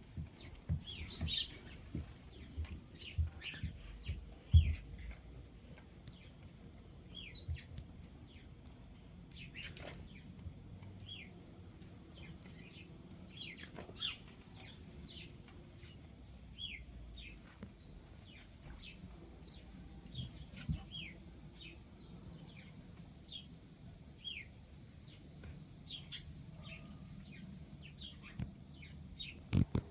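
White Shepherd puppies, about eight weeks old, giving many short, high squeaks that fall in pitch, scattered throughout. Scuffles and knocks come from their play with shoelaces, thickest in the first few seconds, with the loudest knock about four and a half seconds in.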